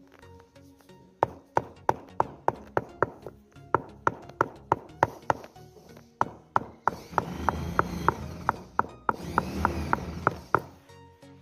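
Rubber mallet tapping a granite ramp strip down into its wet mortar bed, a steady run of sharp knocks about three a second, bedding and levelling the stone. A louder rushing noise swells twice in the second half.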